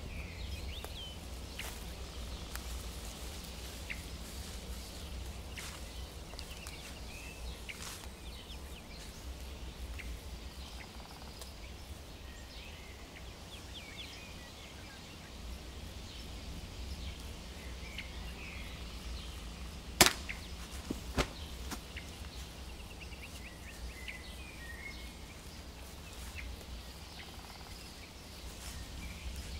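Woodland ambience: scattered bird chirps over a low steady rumble. About twenty seconds in, one sharp loud crack, then two fainter ones about a second later.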